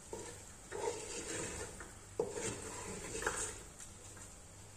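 A wooden spoon stirring and scraping tomato paste frying in a metal pot, in several strokes, with a sharp knock of the spoon against the pot about two seconds in.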